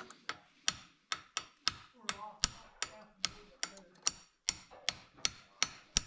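Hammer striking a steel punch set against a sun gear, driving the gear onto a machined crankshaft: steady, evenly spaced sharp metallic taps, about two and a half a second.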